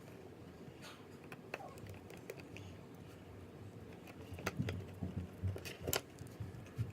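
Small metal clicks and light taps of a precision screwdriver and tiny screws being driven into an iPhone 6's internal bracket. They are sparse at first and get busier and louder about two-thirds of the way through.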